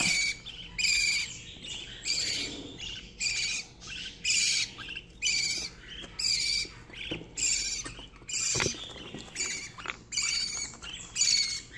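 Budgerigar chicks calling: short high chirps repeated about once a second, one after another.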